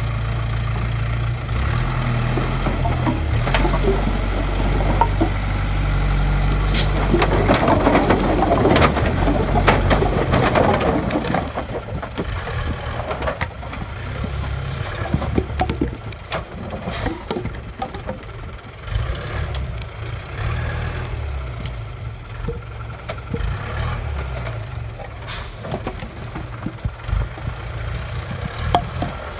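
TAM 110 truck's diesel engine running under load while its load of firewood logs tumbles off the bed in a dense clatter of wooden knocks, heaviest around the middle of the first half. The clatter then stops and the engine runs on more quietly as the truck pulls away, with scattered knocks and two short hisses.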